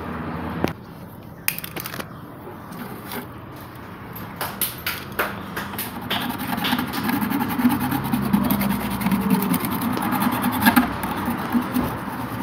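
Scraping and clicking as a refrigerator's steel condenser tube is cleaned by hand to bare metal for soldering. A low steady hum joins about halfway through and grows louder.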